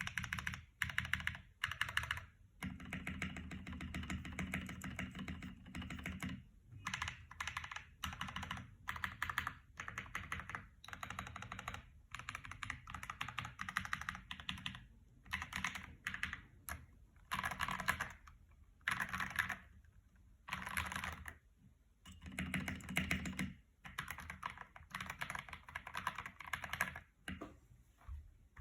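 Typing on a low-quality computer keyboard: rapid runs of key clicks in bursts of one to three seconds, separated by short pauses.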